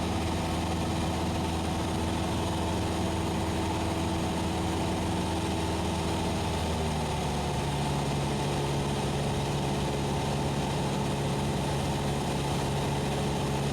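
Cessna 172SP's four-cylinder Lycoming IO-360 engine and propeller droning steadily in flight, heard inside the cockpit. About halfway through, the pitch of the drone shifts slightly lower.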